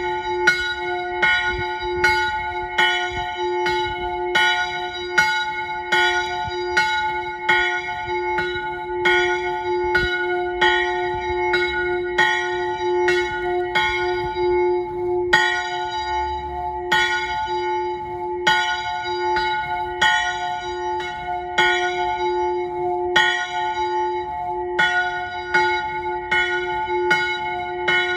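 A single small chapel bell in a roof turret ringing steadily. Its strokes come about one every three-quarters of a second over a continuous humming ring.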